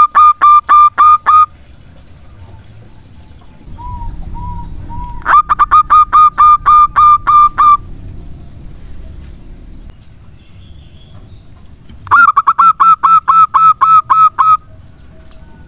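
Zebra dove (perkutut) singing: three phrases of rapid, clipped cooing notes, each phrase about two and a half seconds long and several seconds apart. A few faint coos sound between the first two phrases.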